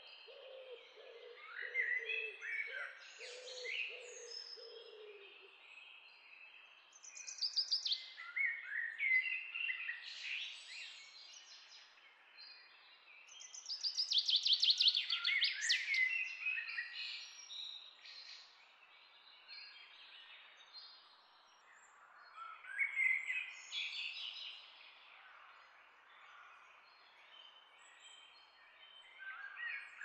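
European goldfinches twittering and singing in phrases, with fast buzzy trills about seven seconds in and again around fifteen seconds in. A low, repeated cooing runs underneath for the first five seconds or so.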